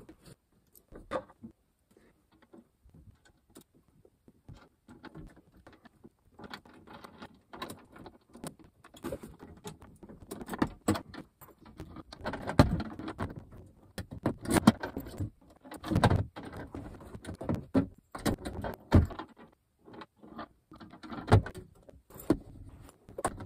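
Keys jangling and irregular metal clicks and knocks from a panel-door lock and its keys being handled. The clicks are faint at first, and several louder knocks come in the second half.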